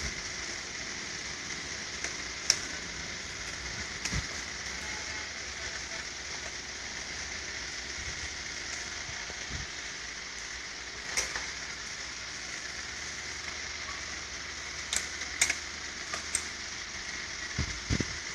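Small clicks and taps of hands fitting wire connectors and parts onto a Riso duplicator's thermal print head, over a steady hiss. There are a few sharp clicks, one early and a cluster in the second half.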